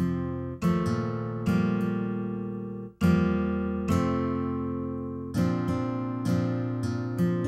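Background music: an acoustic guitar strumming slow chords, each struck and left to ring out, about one a second, with a brief break near the middle.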